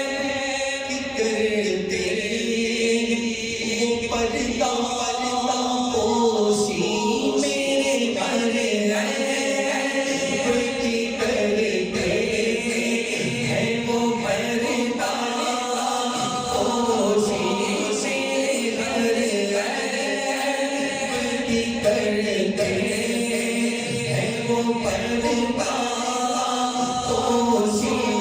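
Unaccompanied voice singing an Urdu naat in a drawn-out chant, amplified through a public-address system with an echo effect.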